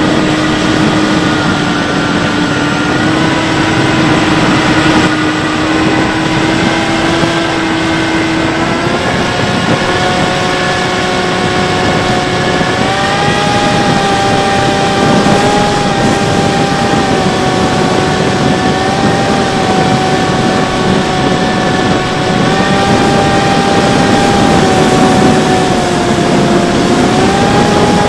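Electric motor and propeller of a Bixler 3 RC plane, heard from the onboard camera: a steady whine whose pitch steps up and down several times with throttle changes, over a rush of air noise.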